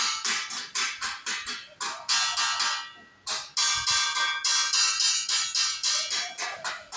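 Background music with a quick, steady beat of about four or five strokes a second, briefly dropping out about three seconds in.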